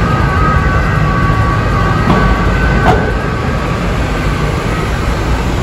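Busy city street traffic heard through an open balcony door: a loud, steady rumble of buses, cars and scooters, with some thin high tones over it and a sharp click about three seconds in.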